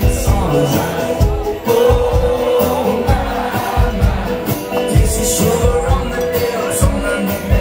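Live country band playing: drums, acoustic and electric guitars and fiddle, with singing.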